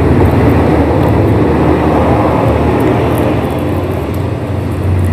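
Road traffic: a steady low rumble of vehicle engines.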